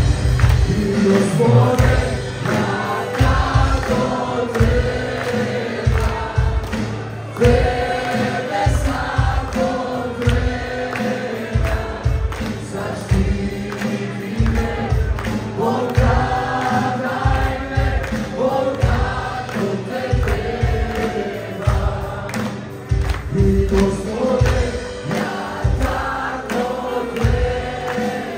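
Music with a group of voices singing over a steady beat of about two strokes a second, with hands clapping along.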